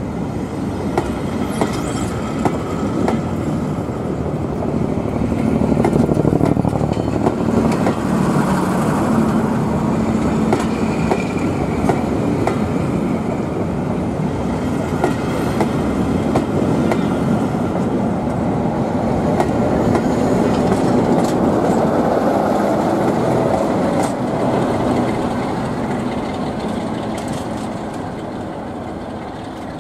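Passenger coaches of a steam-hauled charter train rolling past at close range: a steady rumble with the clicks of wheels over rail joints. The sound fades near the end as the train draws away.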